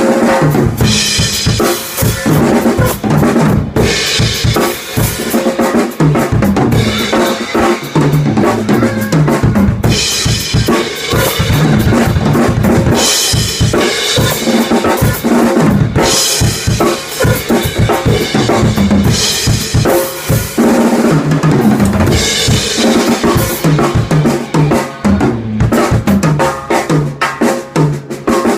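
Acoustic drum kit played in a steady, busy groove, with crash cymbal hits every few seconds.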